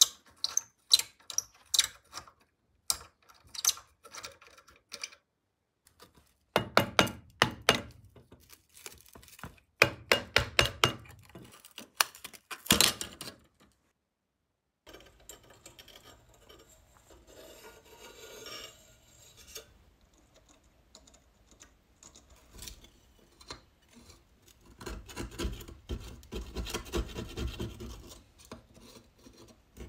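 Small metal parts of an old rusted soldering iron clicking and knocking as they are worked loose by hand. About three-quarters of the way in, a steel blade starts scraping crumbly asbestos insulation off a rusted disc, a rasping scrape.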